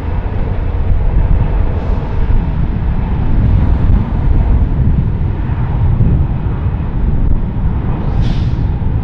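Jet engines of an Airbus A319 rolling along the runway: a loud, steady rumble with roar above it. About eight seconds in, a brief swish rises and falls.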